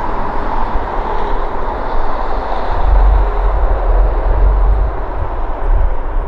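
Boeing 737-800's CFM56-7B jet engines on final approach, a steady low rumble that grows stronger about three seconds in.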